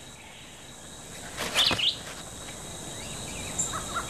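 Birds calling over faint steady background noise: a quick wavering call about one and a half seconds in, then a rapid run of short repeated notes starting near the end.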